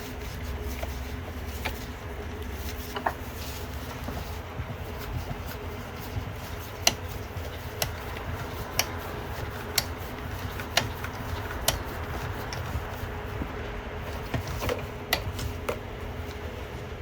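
Sharp clicks about once a second as a socket is worked to screw a new 22 mm sensor into the engine, over a steady low hum.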